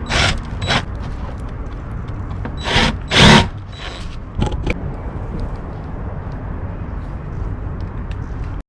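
Power drill run in a few short bursts, as when driving screws while fitting an RV roof fan, over a steady low rumble.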